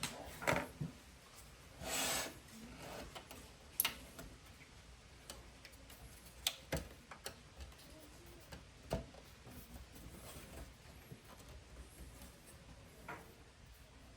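Scattered light clicks and one brief scrape about two seconds in as parts of a car radio unit are handled and worked loose after two retaining screws have been removed.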